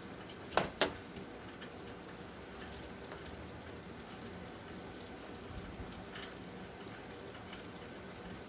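Steady rain during a thunderstorm, heard through an open window, with two brief sharp clicks a little over half a second in.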